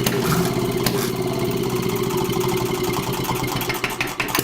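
A vehicle engine running steadily, with a held low hum and a regular pulsing beat, easing off slightly near the end.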